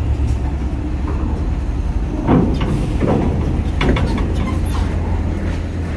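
Heavy diesel trucks rolling off a ferry onto a steel ramp and grated dock: a steady low engine rumble, with several loud metallic clanks from about two seconds in as wheels cross the ramp plates and grating.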